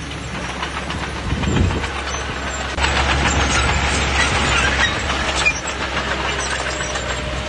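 Bulldozer's diesel engine running steadily with the clicking clatter of its steel tracks, growing louder for about two seconds starting about three seconds in.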